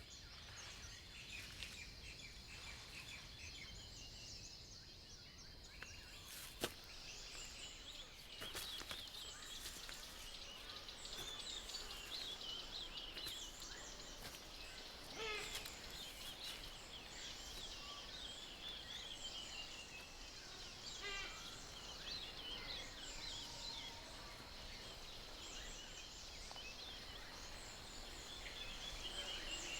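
Faint outdoor ambience of many birds chirping and trilling over a steady hiss, with a single sharp click about seven seconds in.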